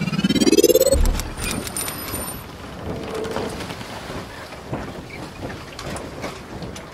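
Logo intro sound effect: a rising whoosh that ends about a second in with a low boom, followed by a steady crackling hiss with scattered clicks.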